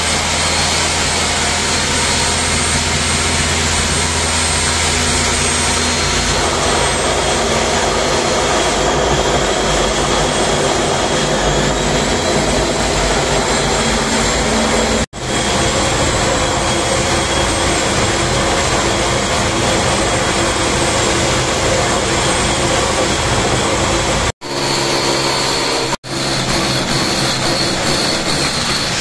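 Electric rotary hammer drilling through a masonry wall with a long bit, running steadily under load. The drilling breaks off abruptly about halfway through and twice near the end, each time picking up again at once.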